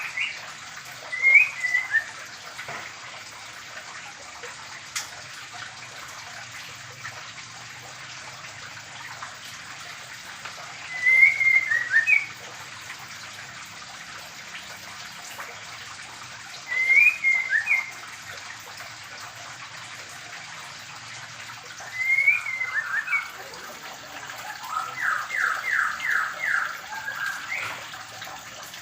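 White-rumped shamas giving short whistled calls every several seconds, then a quick run of about seven repeated downward notes near the end, over a steady hiss.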